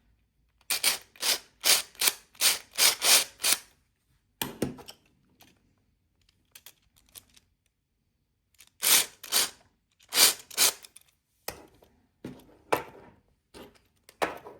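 A run of short scraping strokes, about three a second, with a second run some five seconds later and scattered clicks and rasps between.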